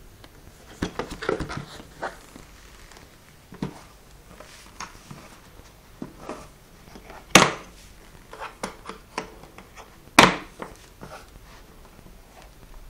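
Hard plastic pistol case being handled: scattered taps and small clicks, then two loud sharp snaps about three seconds apart as its latches are flipped open.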